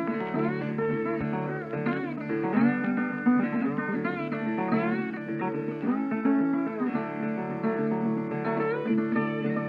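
Background music: plucked acoustic guitar with sliding notes.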